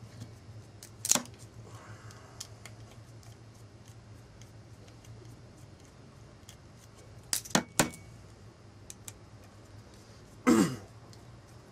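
Small metal clicks and clinks from a precision screwdriver working the screws out of a folding knife's handle scale, with a low steady hum underneath. There is a single click about a second in, three quick clicks about two-thirds of the way through, and one louder brief noise near the end.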